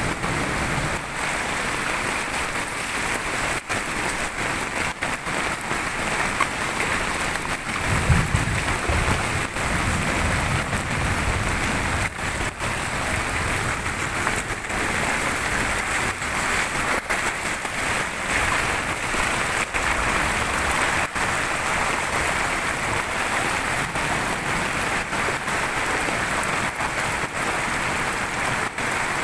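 Steady rushing of muddy flash-flood water flowing across a road, mixed with heavy rain. A low rumble rises for a few seconds about eight seconds in.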